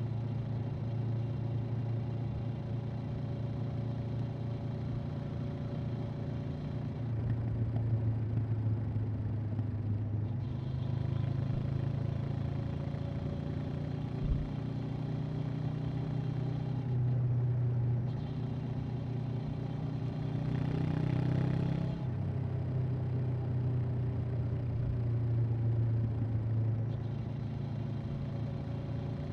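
Honda CB500X's 471 cc parallel-twin engine and exhaust running under way, the engine note rising and falling several times with throttle and gear changes.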